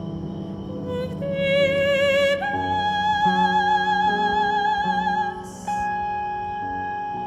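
Soprano singing wordless held notes with wide vibrato, stepping up to a higher sustained note about two and a half seconds in, over sustained electronic drone tones. The sung note breaks off with a short hiss near the end, leaving a steady electronic tone.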